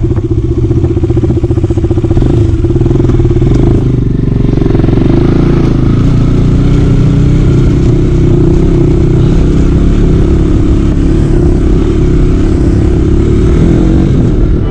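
KTM RC 200's single-cylinder engine running as the bike rides off along a rough dirt lane, heard from on the bike; the engine note shifts and evens out about four seconds in.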